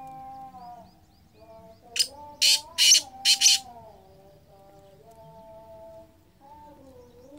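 Black francolin calling: four harsh, grating notes in quick succession about two seconds in, the first short and the next three longer.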